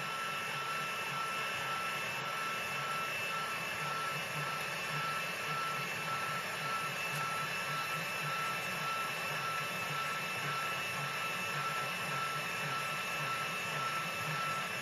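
Portable line boring machine turning its boring bar while the cutter takes a cut through a worn pivot bore, boring the oval hole back round and oversize before bore welding. It makes a steady whine with a high tone and a faint low pulsing underneath.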